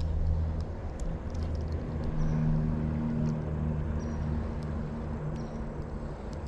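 Low, steady engine-like hum whose pitch shifts around the middle, with scattered faint clicks over it.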